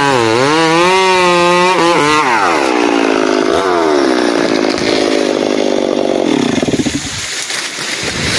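Chainsaw engine running at high revs, its pitch dipping briefly, then falling about two seconds in as it comes off the throttle and winding down lower and rougher toward idle near the end.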